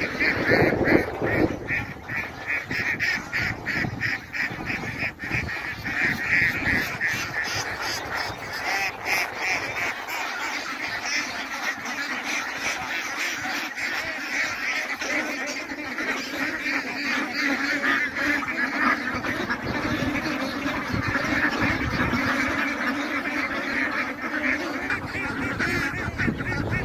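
A large flock of white domestic ducks quacking without a break, many calls overlapping into a continuous din.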